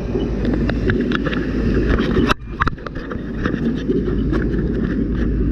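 Fire engine running steadily, a low rumble, with scattered clicks and knocks; the rumble briefly drops away about two and a half seconds in.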